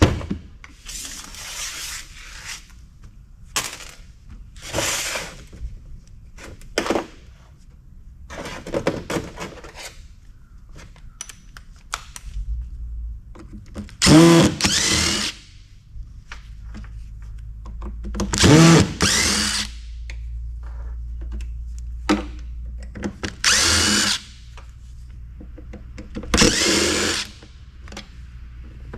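Cordless drill/driver running in short bursts of about a second, several times over, backing screws out of the sheet-metal panels of a kiosk air-handling unit. The motor whines up and down with each burst.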